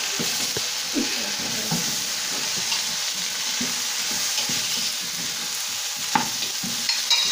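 Tempeh and fried tofu cubes with spice paste sizzling in a wok while being stirred, the spatula scraping and knocking against the pan in short, irregular strokes, with a couple of sharper clicks near the end.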